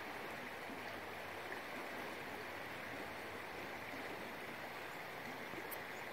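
Steady rushing of river rapids, water running fast over rocks.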